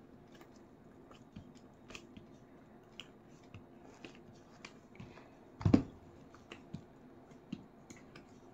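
Silicone mold being flexed and pressed by hand to release a cured epoxy resin tray: scattered small clicks and crackles as the resin pulls away from the silicone, with one louder thump a little past halfway.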